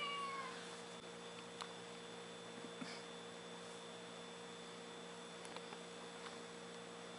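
Faint, steady electrical hum in a quiet room, with a few light ticks. A short, high, falling squeak right at the start.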